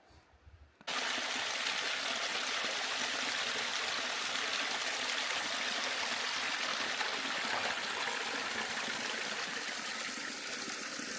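A stream running, a steady rush of water that starts suddenly about a second in.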